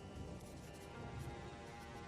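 Quiet background music with sustained notes over a steady bass.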